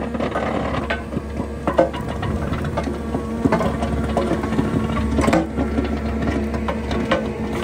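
Skid steer running a rotary soil-milling attachment through rocky ground: a steady engine and hydraulic drone with frequent sharp cracks and knocks as rocks strike the spinning rotor teeth.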